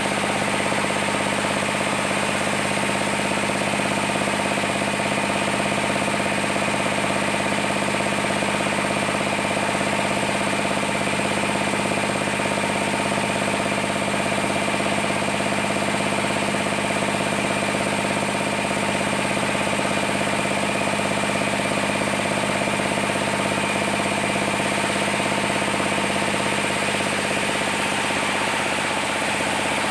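Sawmill machinery running steadily: an engine-driven saw holding an even hum at constant pitch, with no change in load.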